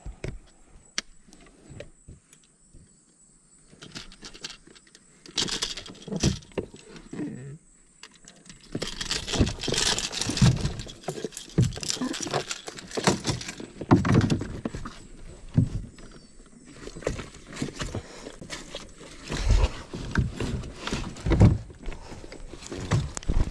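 Irregular clicks, knocks and rattles of gear being handled in a plastic boat hull while a screwdriver is worked at the wiring. The sounds are sparse at first and turn into a denser clatter with heavy low thumps from about nine seconds in.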